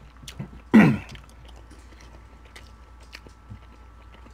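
A man gives one short grunt falling in pitch, like clearing his throat, about a second in. Then come faint wet mouth clicks of chewing roti and curry.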